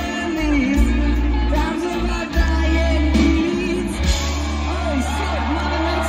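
Live rock band playing loud, with heavy bass, guitars and singing.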